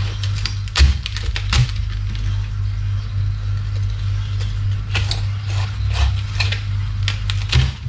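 Chef's knife crunching through the crisp, crackling skin of deep-fried pork belly (lechon kawali): a string of sharp crunches, with knocks of the blade on the wooden cutting board about a second in and near the end. A steady low hum runs underneath.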